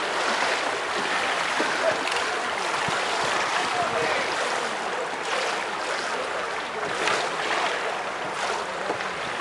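Continuous splashing and churning of pool water from many kayak paddles during canoe polo play, with a few faint distant shouts.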